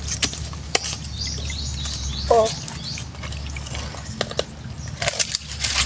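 A knife blade jabbing and digging into wet mud while hunting for mud clams, with scattered sharp clicks where the blade meets hard objects. A brief pitched call comes about two and a half seconds in.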